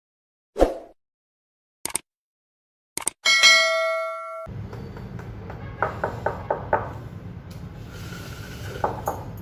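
A thump and two short clicks, then a bell-like ding that rings out and fades over about a second. A steady low hum follows, with a few light taps.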